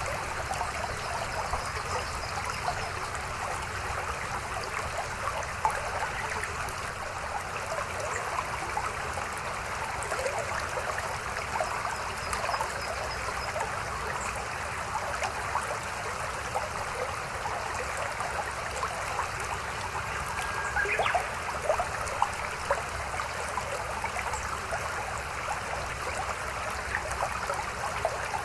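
Mountain stream flowing steadily over rocks, a continuous babbling of running water with small splashes and trickles.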